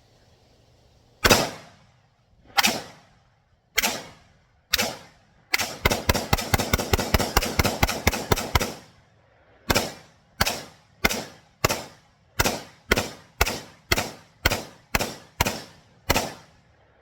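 AR-15-style rifle fired outdoors: four single shots a second or so apart, then a fast string of about twenty shots over three seconds, then about a dozen more at a steady pace of roughly two a second.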